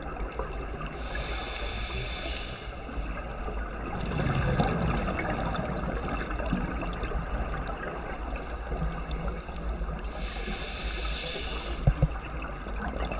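Underwater sound of scuba breathing through a regulator: two hissing inhalations, one near the start and one near the end, with a low gurgle of exhaled bubbles between them, over a steady wash of water noise. A sharp click near the end.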